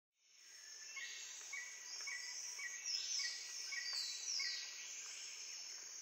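Insect and bird ambience fading in: a steady high insect drone, a short chirp repeating about twice a second, and a few falling calls midway.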